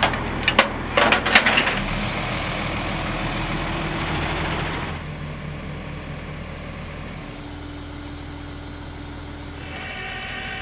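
Several sharp metallic clanks of the winch cable and hook at the front of a rollback flatbed tow truck, over the truck's engine running steadily; the running sound drops quieter about five seconds in. Background music comes in near the end.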